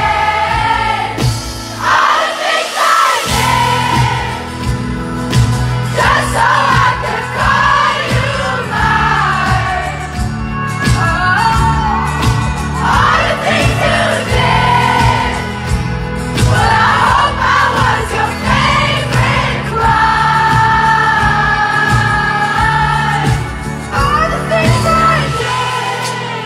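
Live amplified pop song: a female lead vocal sung into a handheld microphone over the band's steady bass, with the crowd singing along.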